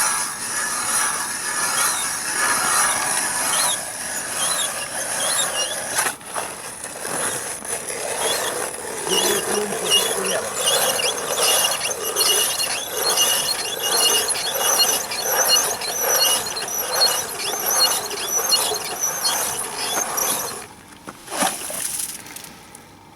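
Ice auger boring a hole through lake ice: a continuous grinding scrape with high, steady ringing tones, which stops about twenty seconds in.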